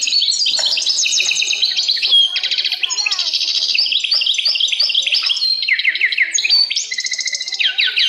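A dense recorded birdsong chorus: many birds chirping and trilling over one another in quick repeated phrases, played loud through a theatre sound system as a stage sound effect.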